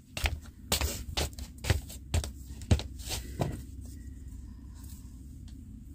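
A quick run of light clicks and taps, several a second, for about the first three and a half seconds, then only a faint low hum.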